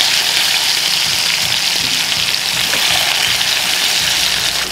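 Strips of bacon sizzling in a cast iron skillet over very hot wood-fire coals: a steady, loud hiss of frying fat.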